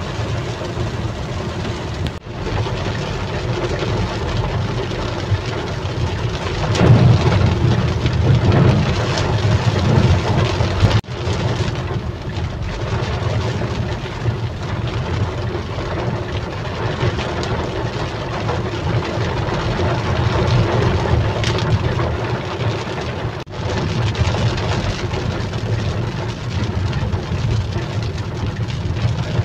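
Heavy rain falling on a moving car, heard from inside the cabin, mixed with a steady low rumble of engine and tyres on the wet road. The sound briefly drops out three times, about 2, 11 and 23 seconds in.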